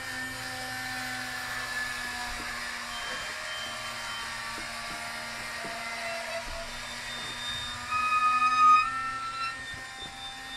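Electric rotisserie motor humming steadily as it turns the spit, with faint scattered ticks. A brief, louder high-pitched tone comes in about eight seconds in.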